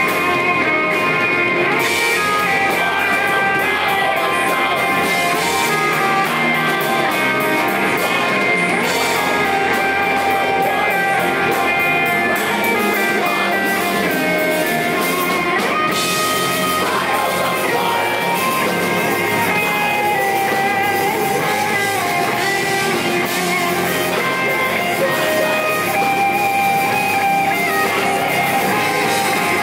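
Heavy metal band playing live: distorted electric guitars riffing over bass guitar and a drum kit.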